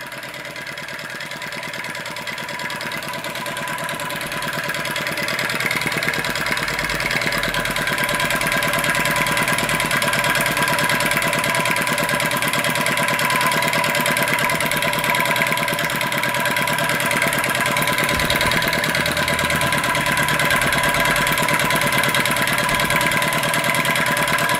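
Scratch-built flame licker (vacuum) model engine running fast and evenly with a rapid, steady beat, growing louder over the first few seconds and then holding steady.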